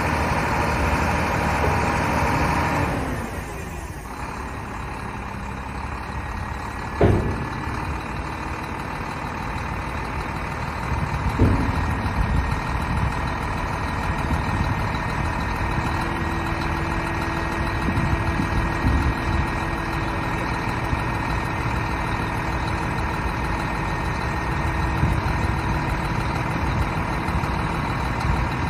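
Diesel engine of a HOWO 8x4 dump truck running, faster and louder for the first three seconds and then dropping to a lower, steadier run as the tipper body is lowered. Two sharp clunks come about seven and eleven seconds in, and a steady hum joins the engine from about halfway through.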